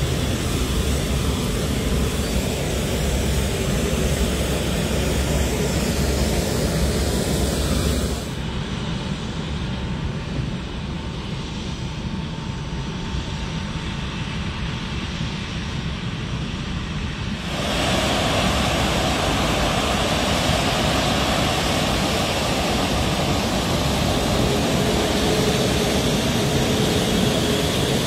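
Qantas Airbus A380's Rolls-Royce Trent 900 turbofan engines running at taxi power as the airliner rolls past, a steady jet rumble and whine. About eight seconds in the sound turns quieter and duller while the aircraft is far off. Near the middle it comes back louder and fuller, with a faint steady whine.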